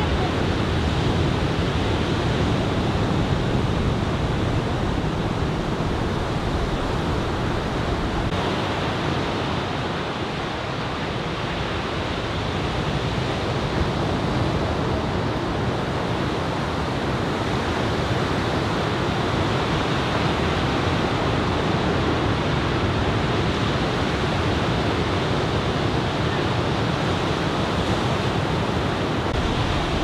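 Ocean surf from chest-high typhoon swell: a continuous, steady rush of breaking waves, dipping slightly in loudness about ten seconds in.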